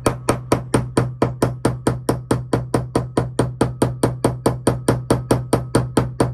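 Brass hammer tapping a punch in quick, even light blows, about five a second, driving the main nozzle out of a two-stroke carburetor body.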